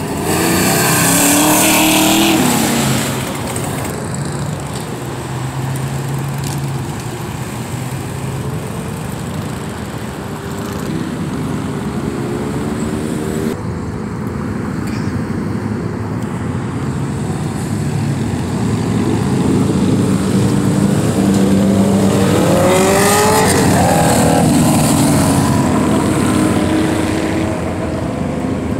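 Cars driving past on a street, their engines running. One goes by loudly in the first few seconds, and later an engine revs up with rising pitch as it accelerates past, the loudest stretch, around 22 to 25 seconds in.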